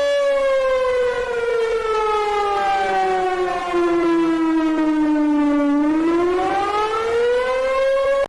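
Civil defense warning siren sounding one long wail: its pitch sinks slowly for about five seconds, then climbs again and cuts off abruptly at the end.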